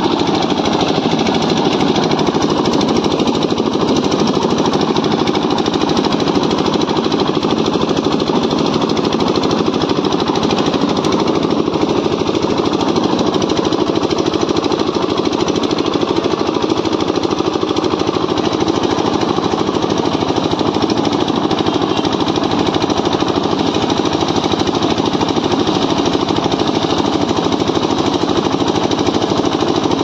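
Concrete mixer's single-cylinder diesel engine running steadily under load with a rapid, even chugging, the drum turning.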